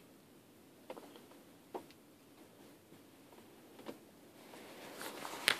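Three faint, well-spaced clicks, then a rising rustle and a louder sharp click near the end, typical of buttons being pressed on a car's radio and display panel.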